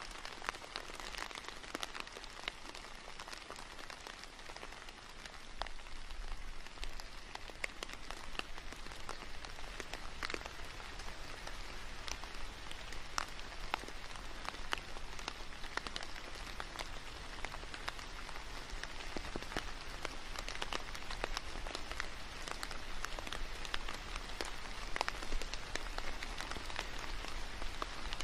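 Steady rain falling, a even hiss scattered with many small drop ticks.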